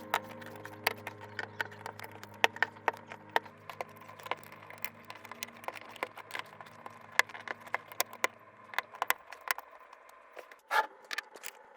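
Plastic Lego bricks clicking and clattering as they are handled and snapped together, many sharp clicks at an uneven pace. Soft background music runs under them and stops about nine seconds in.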